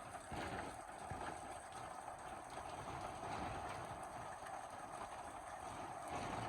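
Steady rain falling, with scattered faint ticks through the even hiss.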